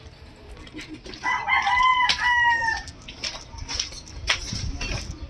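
A rooster crows once, one call of about a second and a half that falls slightly at its end, over footsteps of sandals slapping on a concrete path.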